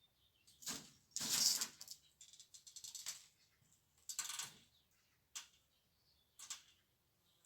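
Several short bursts of clattering and rattling, with a quick run of clicks about two to three seconds in: objects being handled.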